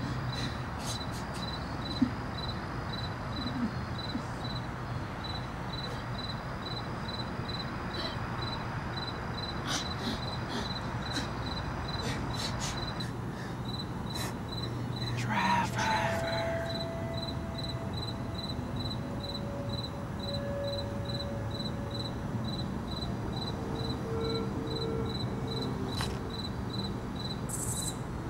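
A cricket chirping steadily, about three short, high chirps a second, over a low hum of night ambience. A single sharp click comes about two seconds in, and a brief louder swell comes about halfway through.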